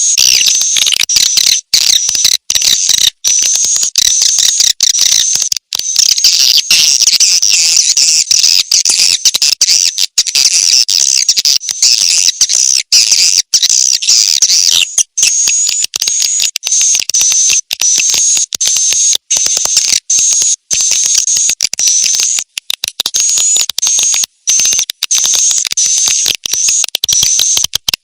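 Bird-lure recording of small songbirds calling, a dense high-pitched twittering that changes about halfway through into evenly repeated short rising chirps, about one or two a second, broken by many brief cut-outs.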